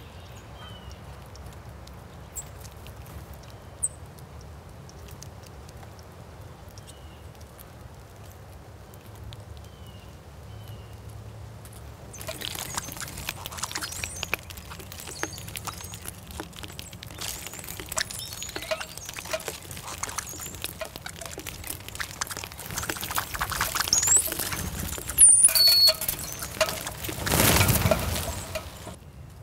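Birds eating at a feeder: a few faint chirps, then from about halfway a dense clatter of pecking and scattering seed, with a louder rush of noise near the end.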